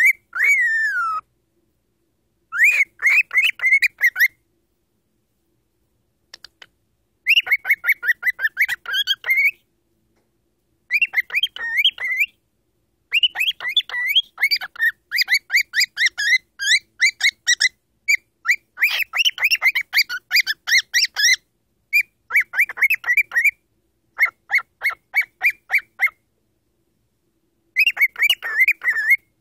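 Cockatiel chirping in bursts of rapid repeated notes, a few seconds at a time with pauses between, opening with a single falling whistle.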